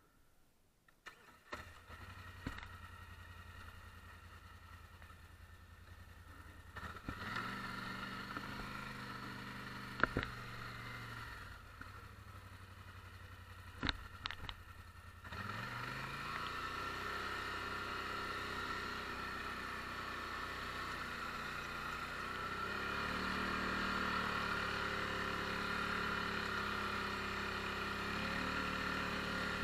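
Polaris Sportsman 850 ATV's twin-cylinder engine running low at first and revving up about seven seconds in, with two sharp clunks. From about halfway it runs steadily at higher revs, louder, as the ATV pushes snow with its front plow.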